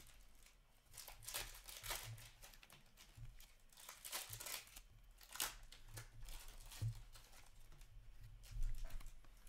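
A stack of hockey trading cards being flipped through by hand: cards sliding and rustling against one another in a series of short, irregular swishes, with a faint low hum underneath.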